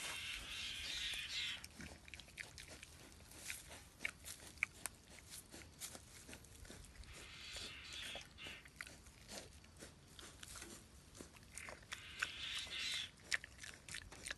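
A piglet chewing and smacking on banana peel, with many sharp, irregular mouth clicks. Three spells of rustling in dry grass come near the start, about halfway through and near the end.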